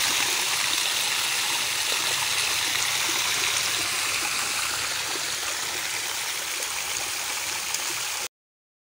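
Steady hiss of water spraying out from the base of a tubewell pump head, groundwater forced up after continuous rains. It fades slightly, then cuts off suddenly near the end.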